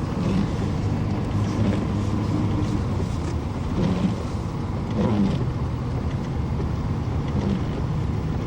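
Car engine and road noise heard from inside the cabin while driving on a snow-covered highway: a steady low hum with an even rush.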